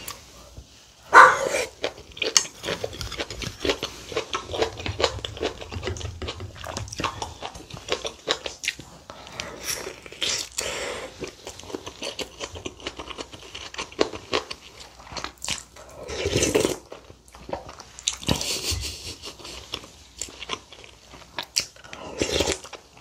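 Close-miked chewing of mouthfuls of kimchi stew and rice, with many small wet mouth clicks and a few louder moments.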